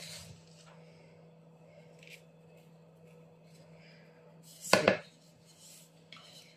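Mostly quiet, with a faint steady hum, and one short sharp clatter about five seconds in: a wooden spatula striking a plastic mixing bowl.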